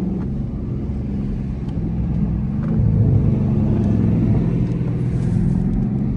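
Dodge Charger Scat Pack's 392 Hemi V8 exhaust rumbling as heard from inside the cabin while driving, getting louder about three seconds in, with a few exhaust pops.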